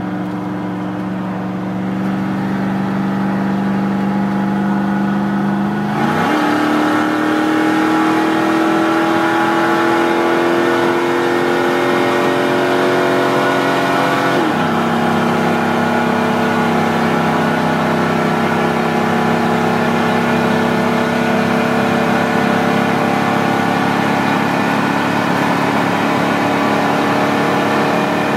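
A 1998 Dodge Ram's 5.2 L (318) V8, fitted with shorty headers and open exhaust cutouts, pulling hard at full throttle, heard from inside the cab. The revs jump up and it gets louder about six seconds in, climbs steadily, drops as it shifts up about halfway through, then climbs slowly again at high speed.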